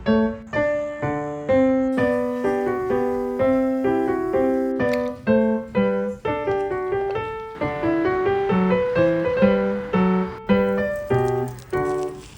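Background piano music: a melody of notes struck one after another at an even pace.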